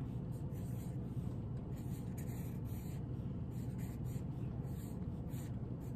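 Marker writing on chart paper: a run of short, irregular scratchy strokes as letters are formed, over a steady low room hum.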